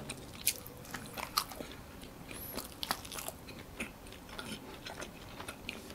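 Close-miked chewing of a spicy chicken wrap in prata-style flatbread, with faint mouth clicks and smacks scattered throughout.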